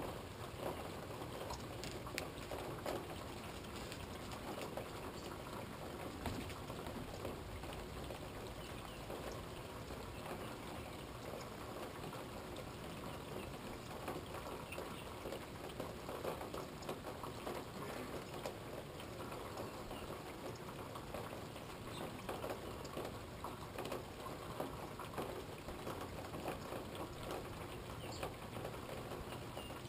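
Steady rain falling: an even hiss thick with small, irregular drop impacts.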